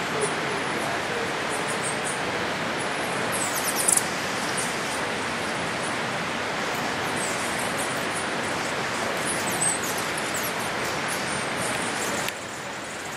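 Steady rushing roar of a waterfall, dropping a little in level just before the end, with thin, high bird chirps over it, a quick cluster of them about four seconds in.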